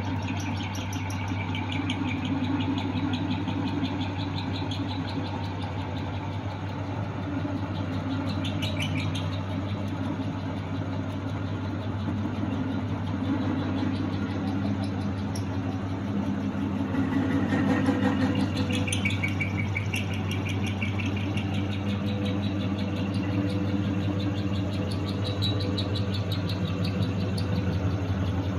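Homemade belt-driven lathe running: the electric motor hums steadily while the V-belts and stepped pulleys whir and the chuck spins. It briefly gets a little louder and higher a bit more than halfway through.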